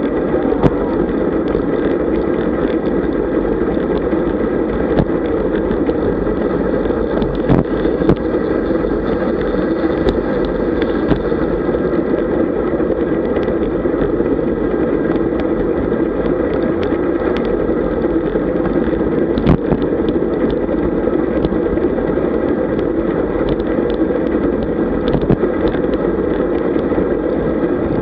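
Steady rush of wind on the microphone and road-bike tyres humming on asphalt, heard from a camera mounted on a bike moving at about 40 km/h. Short clicks and rattles from the bike over small bumps are scattered throughout.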